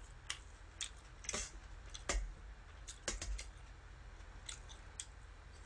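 Metal chopsticks clicking against each other and against a stainless steel bowl while picking up dressed spinach leaves: scattered, irregular sharp clicks.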